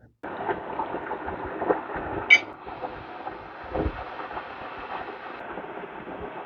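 Cold water pouring steadily into a pot over dried herbs, with a light clink about two seconds in and a dull knock near four seconds.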